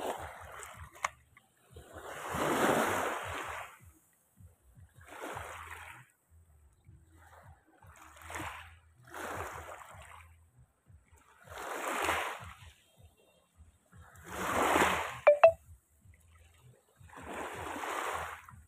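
Small waves washing onto a pebble shore in swells every two to three seconds, each rising and falling away. There is a sharp click about fifteen seconds in.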